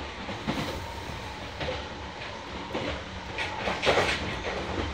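Meitetsu 6500 series electric train running at speed, heard inside the passenger car: a steady rumble of the wheels on the rails with clatter and a few louder knocks and rattles about three and a half to four seconds in.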